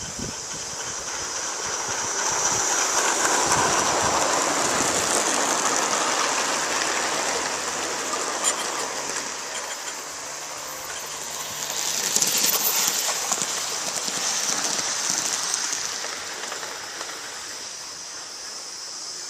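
Gauge 1 live-steam model trains passing on garden track: steam hissing and wheels clattering over the rails. The sound grows loud about three seconds in, eases off, and swells again about twelve seconds in.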